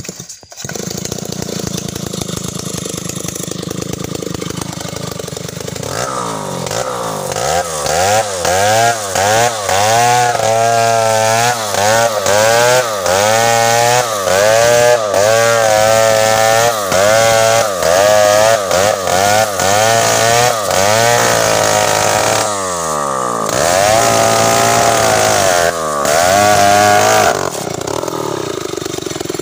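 Two-stroke chainsaw running steadily, then from about six seconds in cutting through a felled tree trunk, its engine speed rising and falling about once a second as the chain bites. Near the end it drops back to a steadier, lower speed.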